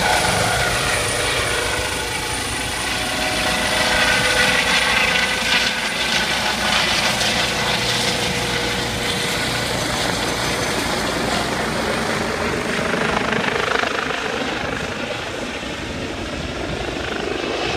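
Helicopter flying overhead, its rotor and turbine engine running steadily with a high whine over the rotor noise; it eases off slightly for a moment near the end.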